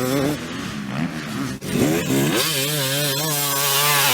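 Two-stroke motocross bike engine at high revs. The throttle is chopped about one and a half seconds in, then opened again, and the revs climb and hold high with a slight waver.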